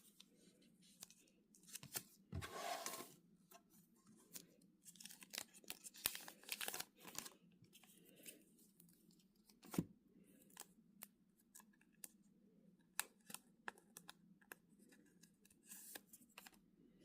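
Quiet handling of album packaging: a scatter of small clicks, taps and rustles, with a longer tearing, crinkling sound about two seconds in and a sharp knock near the middle.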